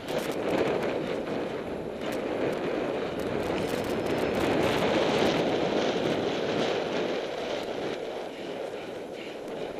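Wind rushing over the microphone of a cyclocross rider's action camera as the bike bumps along a grass course, with many small rattling clicks from the bike and the camera mount.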